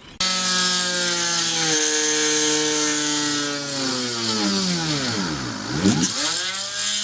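Homemade CNC router running while centre-drilling hole positions: a loud, steady whine in several tones from its 540 spindle motor and NEMA 17 stepper motors. The whine drops slightly about two seconds in, then sweeps down and back up around five to six seconds in.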